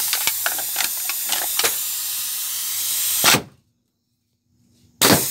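Steady hiss of compressed air in a homemade pneumatic can crusher's air cylinder, hose and push-button 5/2 valve, with several sharp clicks in the first two seconds and a loud burst about three seconds in. The sound then cuts out for about a second and a half and comes back with another loud burst.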